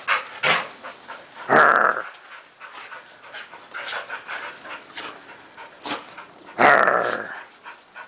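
Border collies vocalising in play: two loud, drawn-out growly barks, about a second and a half and six and a half seconds in, with a shorter bark near the start and quieter short dog sounds between.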